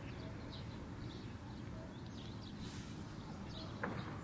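Outdoor ambience: small birds chirping faintly and often over a steady low rumble, with a brief click near the end.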